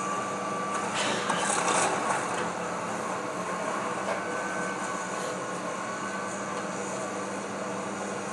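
Excavator's diesel engine running steadily during a house demolition, briefly louder with added noise about a second in.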